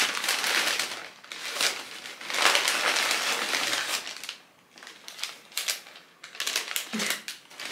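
Paper and plastic wrappers crinkling and rustling as hands rummage through the small wrapped packets of an advent calendar. The crinkling is busy for about the first four seconds, then thins to scattered lighter crackles.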